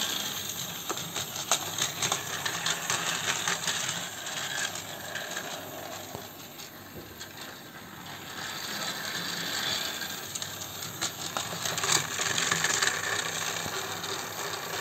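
Battery-powered plastic toy train, a model of the Kushiro Shitsugen Norokko-go, running on plastic track. A small motor whirs under a rapid clicking and rattling of wheels over the track joints. The sound grows fainter around the middle and louder again near the end.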